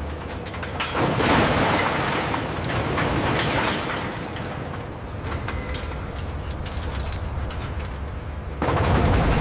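Scrap steel crashing and clattering as a magnet crane drops it, over the steady low rumble of the crane's engine. A long crash of metal begins about a second in and fades into scattered clanks, and another crash starts near the end.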